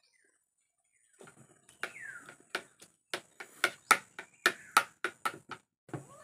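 Metal spoon clinking and scraping on a plate of rice: about a dozen sharp clinks, starting about a second in and coming faster toward the end.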